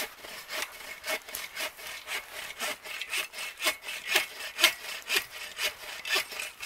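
Hand saw cutting through wood, a steady back-and-forth of about two strokes a second.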